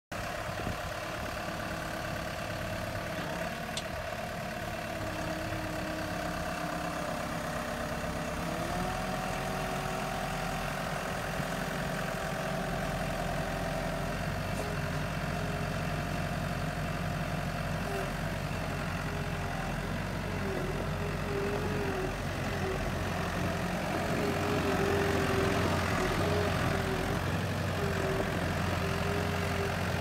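Skid steer engine idling steadily, its pitch stepping up slightly about eight or nine seconds in as the engine speed rises.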